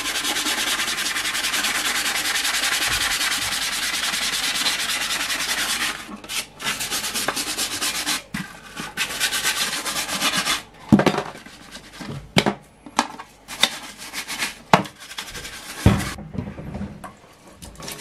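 Scrubbing brush scrubbing a wet plastic PC front panel: fast, steady scrubbing for about six seconds, then slower, broken-up scrubbing with a few sharp knocks.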